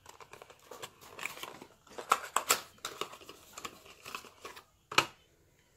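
Crinkling and tearing of packaging as a small paperboard product box is opened by hand: irregular crackles for about four and a half seconds, then one sharp click about five seconds in.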